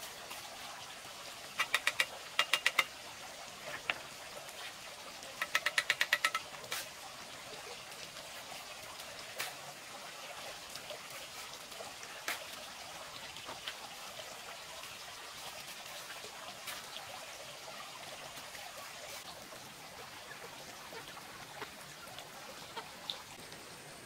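Two quick runs of sharp, ringing taps on stone, a handful each, about two seconds in and again about six seconds in, as a stone is tapped down into wet mortar while a wall is laid. A few single knocks follow, over a faint steady hiss.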